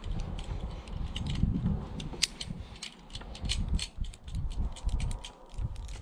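Metal climbing hardware, carabiners and rope gear, clinking and clicking many times in irregular succession as ropes are clipped in, over a low rumble.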